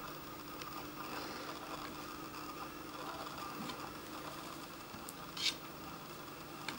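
Faint scratching and rustling from a Siamese kitten batting at a hand, with one short, louder rustle about five and a half seconds in, over a steady low hum.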